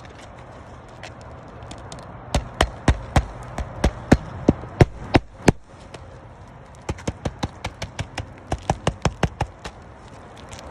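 Sharp, regular knocks from work on a brittle roof, coming in two runs: about three a second, then after a short pause a faster run of about four a second.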